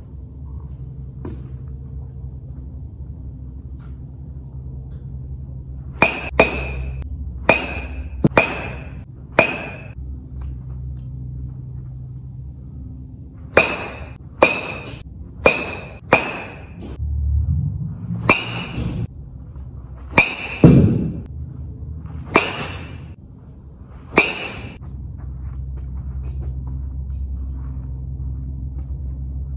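A baseball bat hitting balls off a batting tee: about fifteen sharp ringing cracks in quick succession, starting about six seconds in, with a pause in the middle. A steady low hum runs underneath.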